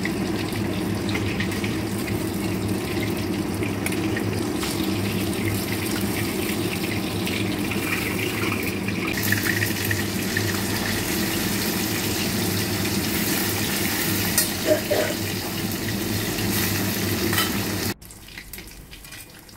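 Rohu fish pieces deep-frying in hot oil in an iron kadhai: a steady sizzle over a low hum, with a few clinks as the pieces are turned. The sound drops away abruptly near the end.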